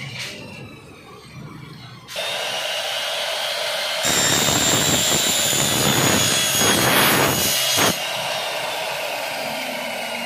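Electric miter saw running from about two seconds in with a high whine, then its blade cutting through aluminum window-frame profile for about four seconds, loud and harsh, after which the motor runs on free.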